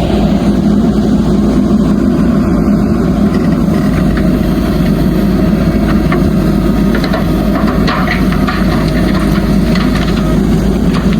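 Heavy diesel engine of a backhoe loader running steadily under light load. Scattered clattering and scraping join it in the second half, as gravel is worked.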